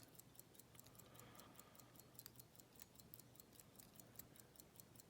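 Near silence: faint rapid, even ticking of about eight ticks a second over a low hum.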